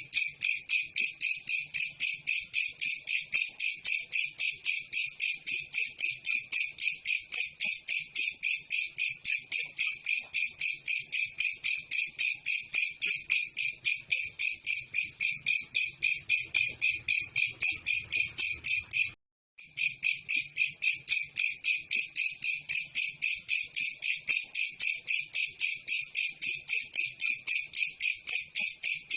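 Belalang kecek katydid stridulating: a loud, high-pitched chirring made of rapid, evenly repeated pulses. It breaks off for a moment about nineteen seconds in and then resumes unchanged.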